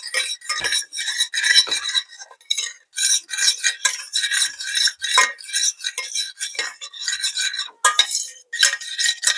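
A metal spoon stirring and scraping a thick, thickening cornstarch-and-ginger paste in a stainless steel saucepan, in a run of quick scraping strokes broken by a couple of short pauses.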